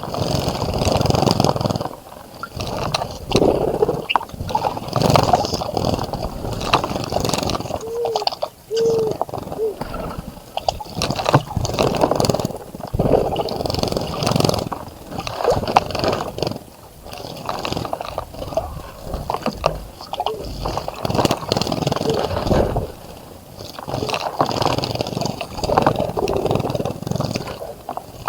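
Water splashing in repeated bursts as a bird bathes in a garden bird bath, dipping and fluttering its wings.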